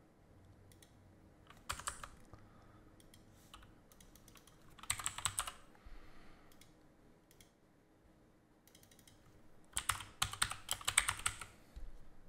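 Typing on a computer keyboard in bursts of quick keystrokes: a short one near the start, another about five seconds in, and a longer run from about ten to eleven and a half seconds. A few single clicks fall between the bursts.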